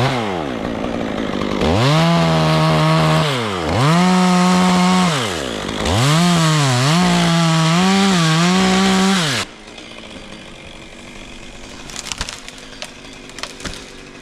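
Chainsaw revved to full throttle three times as it cuts, its pitch dropping back between runs and wavering under load in the wood during the third, longest run. The saw stops abruptly about nine seconds in, leaving quieter sounds with a few light knocks near the end.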